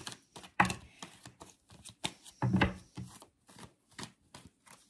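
Tarot cards being handled and laid down: an irregular run of soft clicks and slaps of card on card. The two loudest slaps come about half a second and two and a half seconds in.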